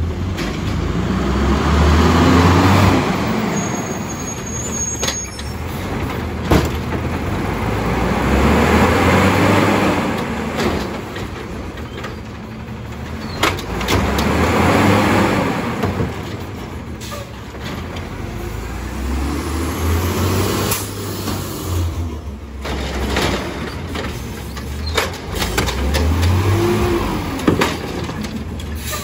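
Natural-gas automated side-loader garbage truck collecting carts. The engine revs up and settles again about every six seconds as it drives the hydraulic arm through each lift-and-dump cycle. Sharp knocks of the carts and arm sound several times between the revs.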